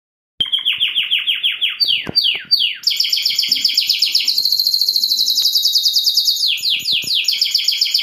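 Domestic canary singing: a song built of rapid runs of repeated notes, with a few quick downward-swooping notes, then a long, very fast, high trill.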